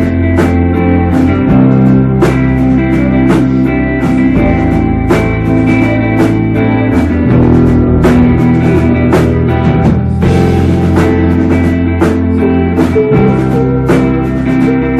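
Live rock band playing loud: electric guitar over a steady drum-kit beat with regular cymbal hits, in a passage with no singing.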